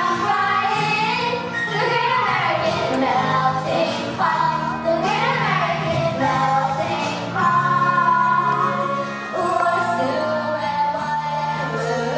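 Children's chorus singing a show song over an instrumental accompaniment with sustained bass notes.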